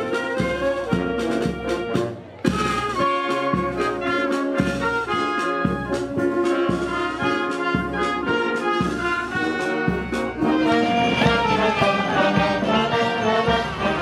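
Police brass band playing: trombones, trumpets and saxophones together over a steady low beat, with a brief break about two seconds in.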